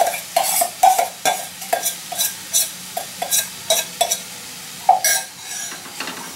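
Kitchen utensils scraping and knocking, about two or three strokes a second, as crumbled chhena is scraped from a bowl and stirred with a wooden spatula into frying masala in a non-stick pan. The strokes stop about five seconds in, leaving a light sizzle from the pan.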